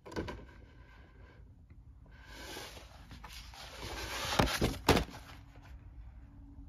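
Heavy-stock paper poster map being handled and shifted: a soft knock near the start, then a paper rustle that swells over a couple of seconds and ends in two sharp flaps of the sheet about four and a half and five seconds in.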